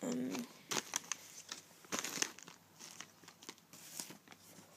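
Clear plastic packaging bag crinkling as it is handled, in short irregular rustles.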